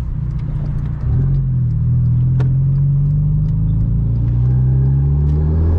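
Turbocharged four-cylinder engine of a 2013 Hyundai Genesis Coupe 2.0T with bolt-on modifications, heard from inside the cabin while driving. The drone dips briefly about a second in, then climbs steadily in pitch as the car pulls through the gear.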